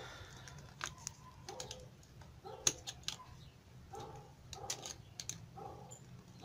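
Faint clicks and short scrapes of steel needle-nose pliers gripping and bending stiff solid copper wire as it is wound tightly around a soldering iron tip.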